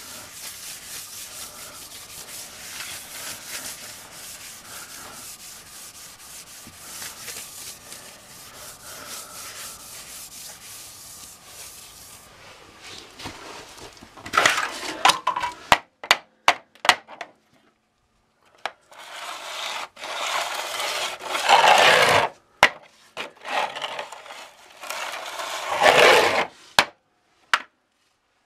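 Grout being rubbed by hand across ceramic tiles: a steady rubbing for about twelve seconds, then louder, separate scraping strokes broken by several sharp clicks.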